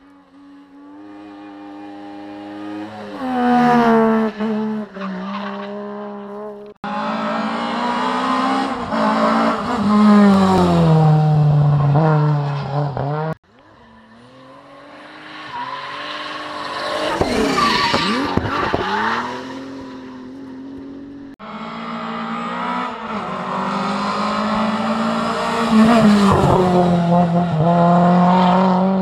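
Rally cars at speed, their engines revving hard and dropping in pitch at each gear change, in four short clips joined by abrupt cuts. In the third clip a car sweeps past close, its engine note climbing and then falling away.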